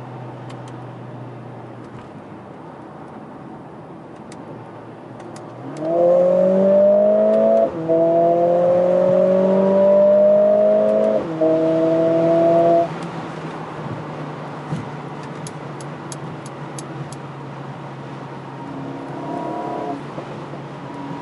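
Mercedes-AMG CLA 45 S's turbocharged 2.0-litre four-cylinder heard from inside the cabin under hard acceleration. The engine note jumps up in loudness and climbs steadily in pitch for about seven seconds, broken twice by brief gear-change gaps, then drops back to a quiet cruising hum. A shorter, lighter burst of throttle comes near the end.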